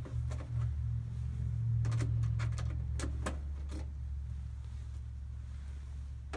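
A steady low hum throughout, with a few short metallic clicks and scrapes of a screwdriver backing out the sheet-metal screws that hold a breaker to the side of an electric heat-kit box. The clicks come about half a second in and then several between two and four seconds.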